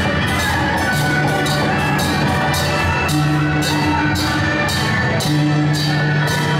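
Loud Taiwanese temple procession music: drums and cymbals striking about twice a second over long held low notes.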